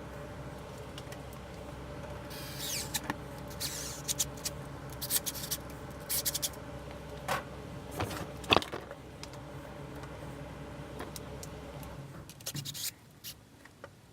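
Scattered clicks, knocks and short scrapes of plastic pipe fittings and hose clamps being handled while a check valve is fitted to a sump pump's PVC discharge pipe. Under them runs a steady machine hum that cuts off about twelve seconds in.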